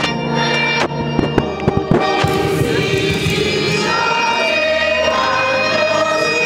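Group of voices singing over held organ chords, the singing coming in about two seconds in. A brief cluster of sharp cracks about a second in.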